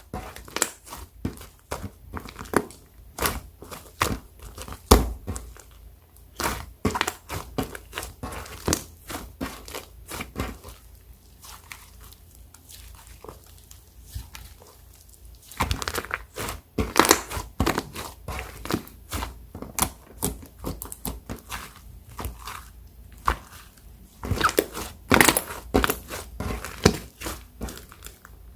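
Foam-bead slime (floam) being kneaded and squeezed, giving dense, irregular crunchy crackles and pops, sparser for a few seconds in the middle.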